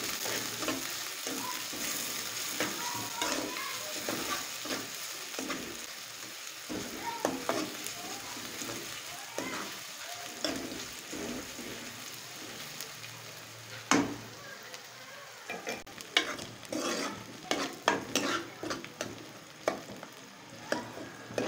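Sliced onions frying in hot ghee in an aluminium kadai, a steady sizzle, while a metal spoon stirs and scrapes them around the pan. One sharper clink of the spoon on the pan comes about fourteen seconds in.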